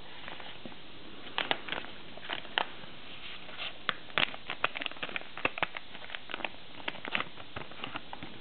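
A thin plastic pouch crinkling and crackling in the hands as it is handled and opened. The crackles are irregular and start about a second and a half in, over a steady background hiss.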